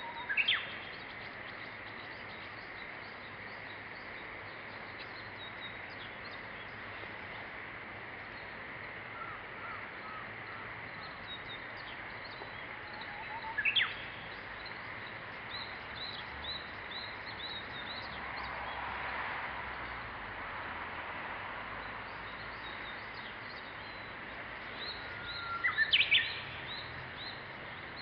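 Japanese bush warbler (uguisu) singing: three loud song phrases, one near the start, one midway and one near the end, over a steady background hiss.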